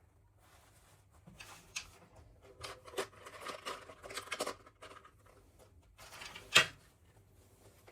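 Toy packaging being handled and opened by hand: a few seconds of crinkling rustles and small clicks, then one sharp snap near the end.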